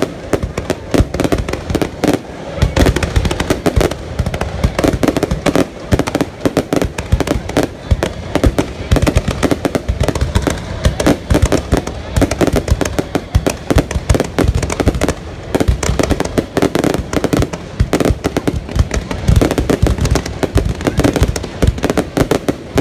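Fireworks going off in a rapid, unbroken barrage of overlapping bangs and crackles.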